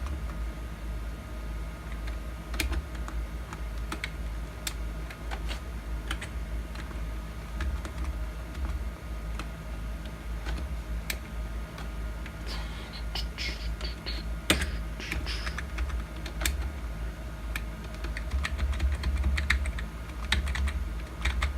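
Computer keyboard keys pressed one at a time at an irregular pace while navigating a BIOS setup screen, over a steady low hum.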